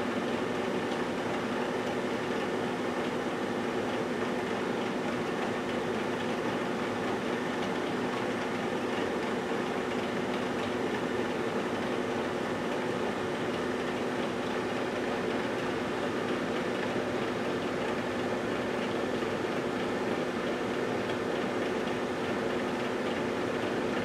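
GE Dual Wave microwave oven running mid-cycle, a steady hum with a few fixed tones that does not change.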